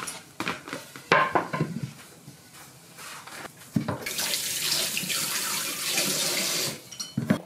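Kitchen tap running into a sink as a steady hiss for about three seconds, starting about four seconds in and shutting off near the end. Before it, a few knocks and clatters of things being handled on the counter.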